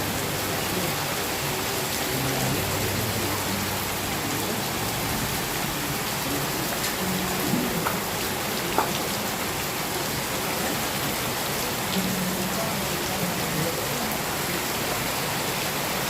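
Steady rain falling, a dense, even hiss, with a short click about nine seconds in.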